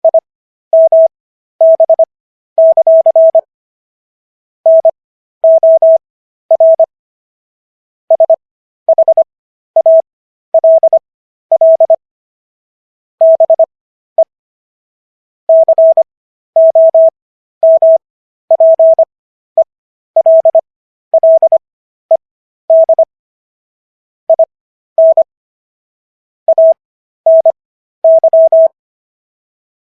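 Morse code sent as a single pure beep tone, keyed on and off in short and long elements with silence between them and longer pauses between groups. It is sent at 15 words per minute with Farnsworth spacing: characters at 25 words per minute, with the gaps stretched. It spells out the text of the US Constitution's Fifth Amendment.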